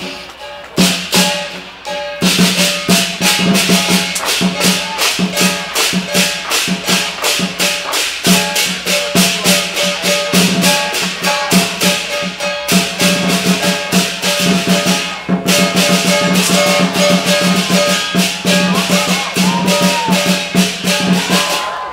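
Lion dance percussion: a drum with clashing cymbals and gong, pounding out a fast, steady beat of about four strikes a second. It starts about a second in, breaks off briefly near the middle, and stops near the end.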